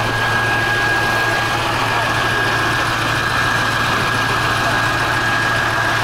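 Ural 4320 army truck's diesel engine idling steadily close by, with a steady high whine running through it.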